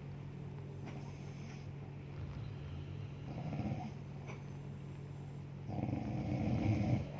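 A sleeping woman snoring: a short rough snore about halfway through, then a longer, louder one near the end, over a steady low hum.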